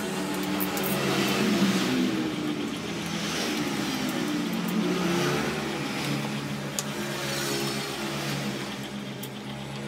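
An engine running and revving, its pitch rising and falling, with one sharp click about seven seconds in.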